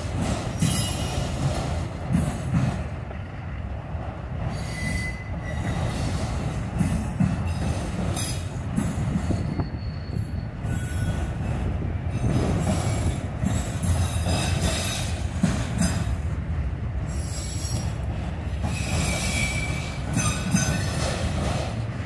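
Freight train of enclosed autorack cars rolling past: a steady low rumble of steel wheels on rail, with short high wheel squeals now and then.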